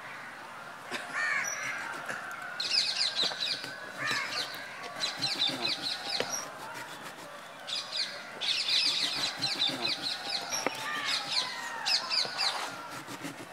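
Birds calling outdoors in repeated bursts of rapid high chirps, with some lower calls in between, and a few light knife knocks on a plastic cutting board.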